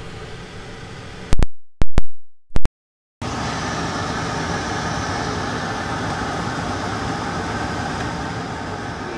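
400 CFM kitchen range hood exhaust fan running on high: a steady rush of air with the hum of its motor. About a second and a half in, a few very loud clicks and half a second of dead silence break it, and the fan then runs on louder.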